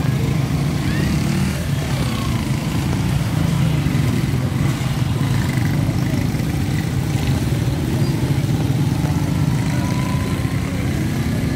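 Motorcycles and a car passing on a wet road in the rain: a steady low engine drone over an even hiss.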